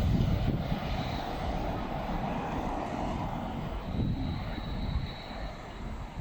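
Steady low rumble of a running train, with no horn sounding.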